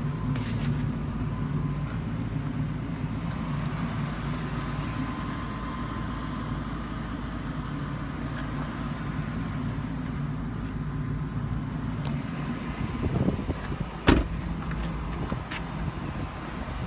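An engine idling steadily. There is a sharp click about fourteen seconds in.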